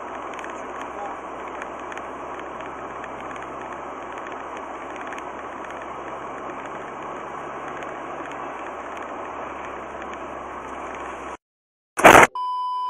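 Dash cam recording of a car's road and engine noise from inside the cabin, a steady rumble and hiss. It cuts out shortly before the end. Then a sudden loud bang comes as the car runs into the dark car ahead, followed by a brief beep-like tone.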